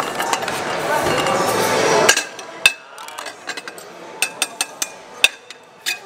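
Metal serving utensils clinking and tapping against a metal tray and ceramic plates as baklava is cut and served: a dense rush of noise for the first two seconds, then about six sharp, separate clinks.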